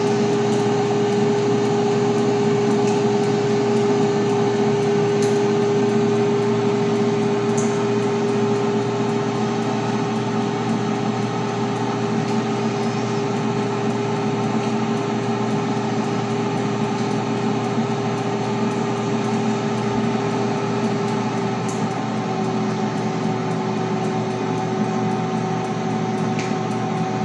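Philco Air Fry Gourmet Black 1500W air fryer running, its fan giving a steady hum with one clear tone. About three-quarters of the way through, the hum drops slightly in pitch as the heating element switches back on.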